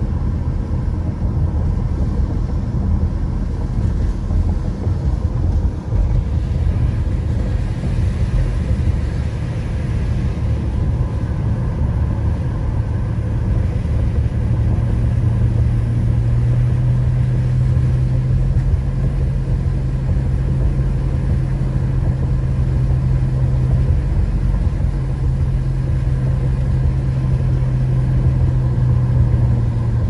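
Subaru driving along a wet road, heard from inside the car: a steady low rumble of tyres and engine. About halfway through a steady hum joins in and holds to the end.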